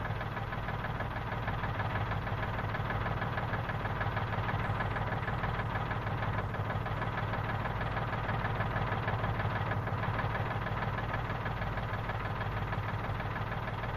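David Brown Selectamatic tractor engine running steadily at an even speed, with no change in pitch or loudness.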